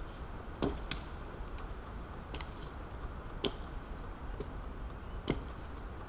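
Wetterlings forest axe chopping wood: three solid strikes a couple of seconds apart, with a few lighter knocks between them, over a steady low rumble.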